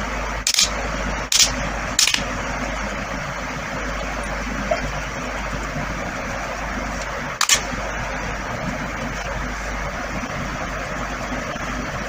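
Steady background rushing noise with a few sharp clicks: three in the first two seconds and one more about seven and a half seconds in.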